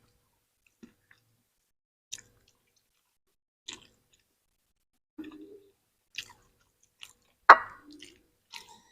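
Cat chewing food: sporadic wet clicks and smacks about once a second, with one sharper, louder click near the end.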